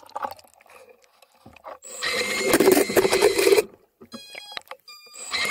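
Electric thruster motors of a homemade underwater drone running in loud bursts, with a steady whine over churning water, cutting in and out. The drone is malfunctioning and running haywire.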